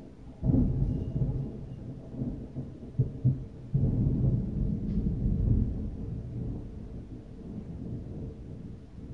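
Thunder heard from inside a house. A heavy low rumble breaks in suddenly about half a second in, a couple of sharp cracks follow around three seconds, and then a second long rumble slowly fades away.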